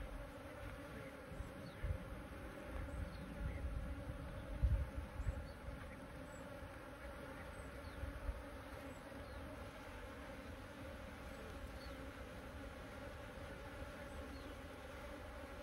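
Wild bees buzzing around their nest holes, a steady hum of several overlapping tones, with a few low rumbles in the first half.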